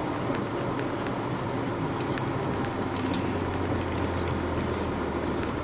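Dump truck's engine running with a steady low hum while the truck drives slowly over a rough dirt road, heard from inside the cab, with scattered light clicks and rattles.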